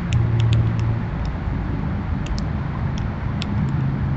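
A steady low engine hum that shifts in pitch a few times, with short high ticks scattered through it.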